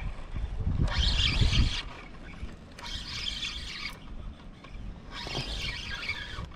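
Spinning reel cranked in four spells of about a second each, roughly two seconds apart, reeling in a hooked fish under load. Wind rumbles on the microphone, heaviest in the first two seconds.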